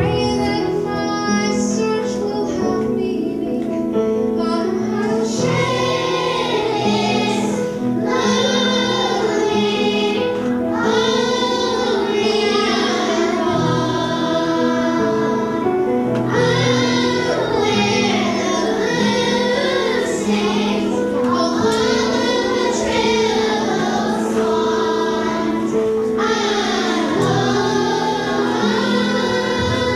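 Children's choir singing to piano accompaniment, the piano playing sustained chords beneath; the singing grows fuller about five seconds in.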